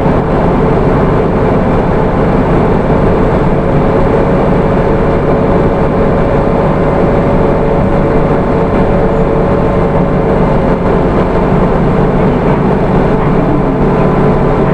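Hino Rainbow II bus with its Isuzu 4HK1 four-cylinder diesel engine driving steadily along the road: an even engine and road noise with a steady whine over it.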